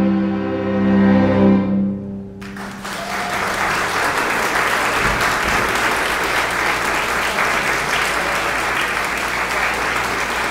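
A string quartet of two violins, viola and cello holds its closing chord, which cuts off about two and a half seconds in. Audience applause follows at once and carries on.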